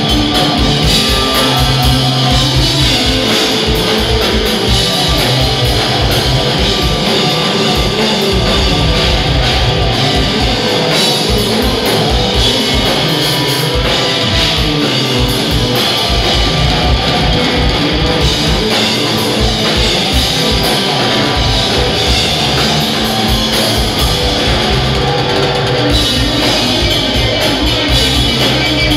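Live rock power trio playing loud: electric bass, electric guitar and drum kit driving a steady beat.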